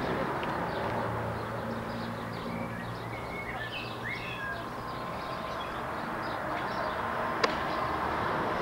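Steady outdoor background noise with a low hum, and birds chirping several times in the middle. A single sharp click near the end.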